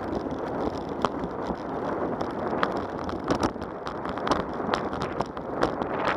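Wind buffeting the microphone over the rolling hiss of a bicycle on a paved path, with scattered sharp clicks and knocks as it rattles over cracks and joints in the pavement.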